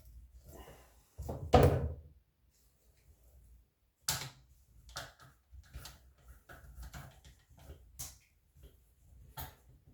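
Knocks and clatters from handling plastic sink drain pipe parts, with a heavier thump about a second and a half in and several sharp clicks and taps after.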